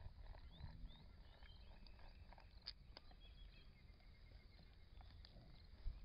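Near silence: faint outdoor ambience with a few soft high chirps and scattered light clicks over a low rumble.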